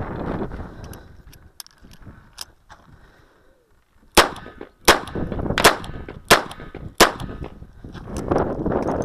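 A handgun fires five shots in quick succession, about two-thirds of a second apart, about four seconds in. Wind buffets the microphone before and after the shots.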